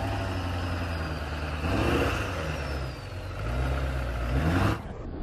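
Lifted diesel pickup truck's engine revving as it drives, climbing in pitch twice, about two seconds in and again near the end, before dropping off.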